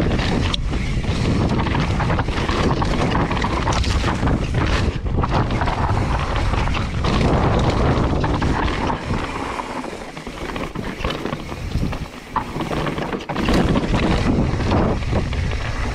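Wind rushing over the microphone of a mountain bike riding downhill on a dry dirt trail, with the tyres crunching over the ground and frequent short knocks and rattles as the bike hits bumps.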